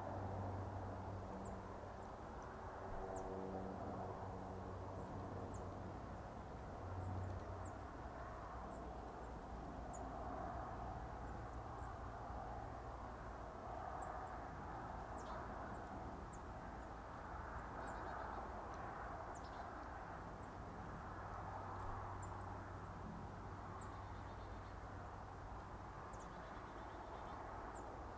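Rural ambience: scattered short, high chirps of small birds over a low, steady rumble.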